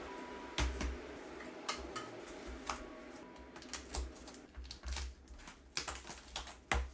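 A small plastic safety cutter scratching and slicing through packing tape on a cardboard mailer, with irregular sharp clicks and scrapes of the blade and tape against the cardboard.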